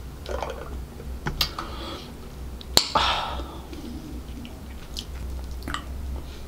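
Close-miked slurping and mouth sounds from sipping a drink carton through a straw, then a sharp tap about three seconds in, followed by a breathy exhale and small wet mouth clicks.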